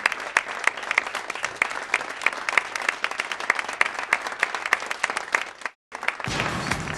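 Studio audience applauding steadily. The applause cuts off suddenly for a moment near the end, then the show's bumper music starts.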